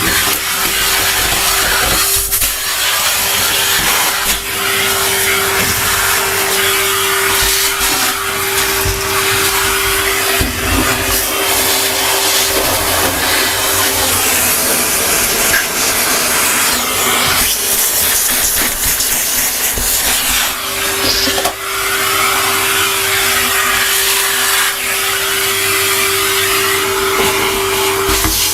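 Henry vacuum cleaner running continuously, sucking up dust and DIY debris. A steady motor whine sits over the rush of air, dropping away through the middle stretch, with scattered clicks and rattles as bits go up the hose.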